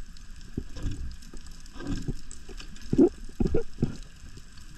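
Underwater sound of a diver swimming: irregular low thumps and swishes of water moving against the camera, a cluster of them about three seconds in.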